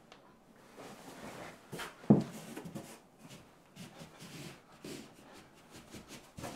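A person moving about on a bed and kicking up into a handstand against the wall: one loud thump about two seconds in, with rustling of bedding and smaller knocks.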